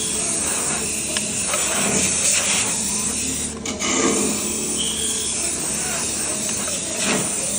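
CNC wood lathe turning wooden beads: a steady hiss of the cutter on the spinning wood over a machine hum, with a brief break in the pattern about every four seconds as the automatic cycle repeats.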